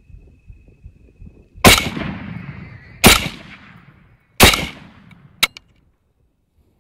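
Three rifle shots from a 27 Creedmoor Ackley Improved, each echoing, about a second and a half apart. A short sharp click follows near the end, as the rifle fails to cycle.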